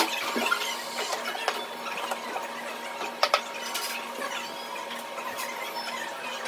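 Pen scratching on notebook paper in short writing strokes, with a couple of sharper clicks, one about three seconds in, over a steady faint hum.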